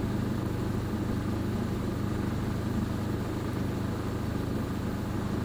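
A boat motor running steadily with a low, even hum.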